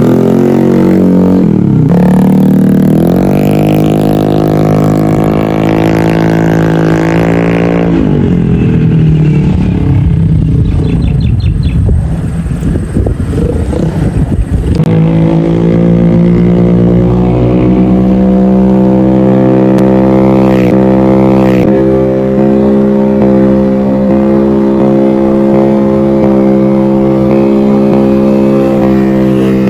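Motorcycle fitted with an SC Project aftermarket exhaust (open pipe) being revved. The revs rise and fall over the first several seconds, run rough and uneven in the middle, then are held steady at high revs for the second half.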